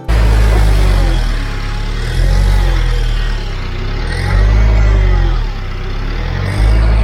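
Kubota L3940 tractor's diesel engine working under load, its pitch rising and falling as the load comes and goes, with a loud low rumble that steps louder about two, four and six and a half seconds in.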